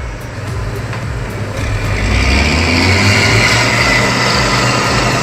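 A heavy vehicle's engine running steadily, getting louder about two seconds in.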